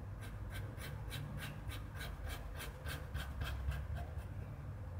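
Pen scratching on paper in quick short strokes, about four a second, as a fringe of hair is drawn in line by line; the strokes stop a little before the end.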